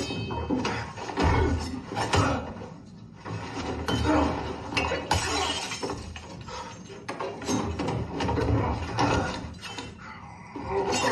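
Movie fight-scene sound effects: a rapid, irregular run of blows, knocks and scuffling.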